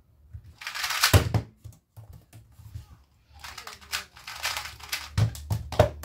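A 2x2 speedcube being turned very fast, a dense run of plastic clicking for under a second, ending in a sharp knock as it is put down. A second run of fast clicking follows a couple of seconds later, then a few sharp knocks near the end.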